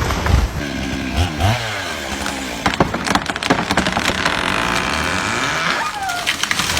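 Two-stroke chainsaw engine running, its pitch dipping and rising several times as the throttle is worked.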